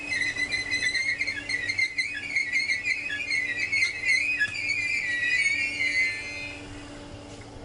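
Merseyrail Class 507 electric train's wheels squealing against the rails as it moves along the platform: a high, wavering squeal over a faint steady hum. It fades out about six seconds in as the train draws away.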